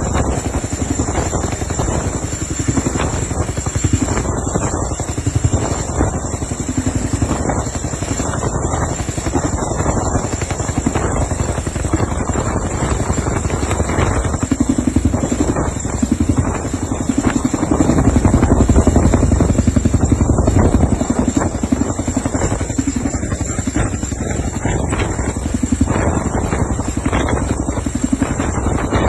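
Helicopter running, its rotor beating in a fast steady pulse over a high, steady turbine whine; it grows louder for a few seconds past the middle.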